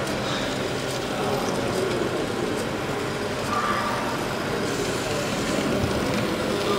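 Steady background din of a busy indoor exhibition hall, with indistinct voices of visitors talking.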